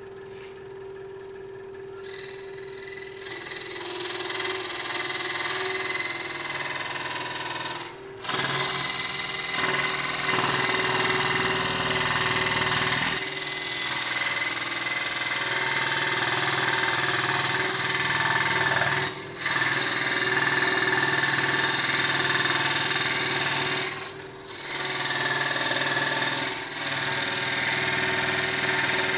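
Hegner scroll saw running at mid-range speed, its jeweler's metal-cutting blade sawing through thin mild steel, about 20 gauge. A steady hum under a harsh rasping cutting noise that builds up a couple of seconds in and drops out briefly about three times as the work is fed.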